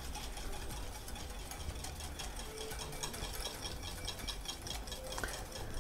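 Wire whisk beating egg yolks in a glass bowl in quick, even strokes, a rapid steady clicking, while oil is streamed in to build a mayonnaise-style emulsion (aioli).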